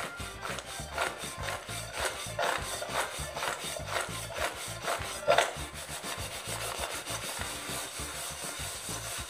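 Crisp fried besan-coated peanuts (sing bhujiya) tossed round a stainless steel bowl: a continuous dry rattling and scraping of the nuts against the metal, swelling in swishes about twice a second as the bowl is shaken. The crisp rattle is the sign that the coating has fried crisp.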